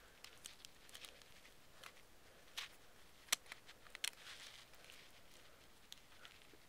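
Faint handling of small plastic phone parts, with scattered sharp clicks, three louder ones in the middle, as the BlackBerry Bold 9000's keyboard and bezel are pushed out of its housing by hand.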